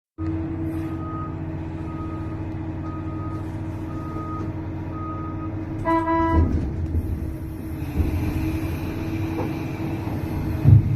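Large excavator's diesel engine running, with its travel warning alarm beeping about once a second for the first six seconds. A short horn blast follows about six seconds in, and there is a loud thud near the end.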